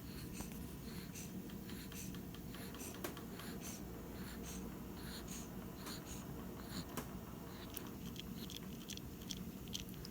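A sleeping pet breathing quickly and faintly, short soft hissy breaths repeating over a low steady room hum.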